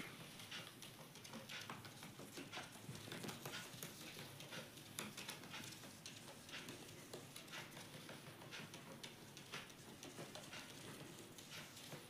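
An Indian ringneck parakeet's feet tapping and scratching on a bare wooden floor as it steps and hops about: faint, irregular clicks, several a second.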